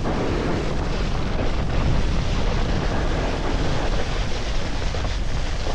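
Wind buffeting the microphone and a snowboard sliding and scraping over snow while riding downhill, a steady rush with a heavy low rumble.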